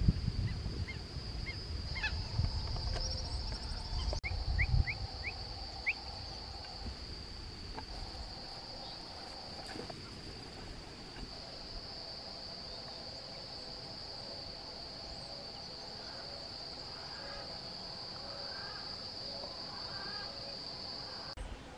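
Countryside ambience led by a steady high-pitched insect drone, with a few short bird chirps and a lower steady call that comes and goes. A low rumble is heard in the first few seconds.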